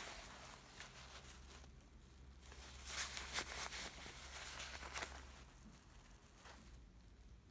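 Faint rustling of jacket fabric and small clicks of its zipper being handled by hand, with a few louder rustles about three seconds in and again near five seconds.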